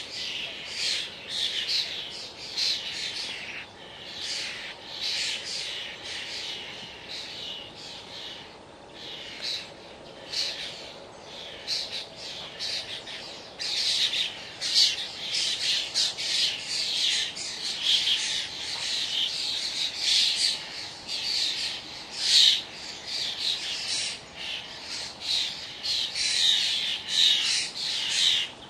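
A flock of starlings chattering and squawking without a break, many harsh calls overlapping and swelling and ebbing in loudness.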